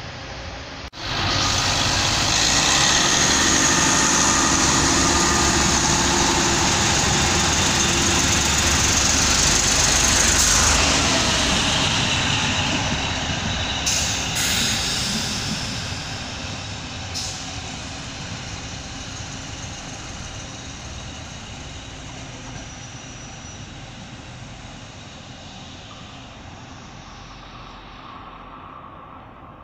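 A two-car Trenord regional train passes close by: a loud, steady rumble of the train running that comes in suddenly about a second in, with a few sharp knocks in the middle, then fades slowly as the train pulls away.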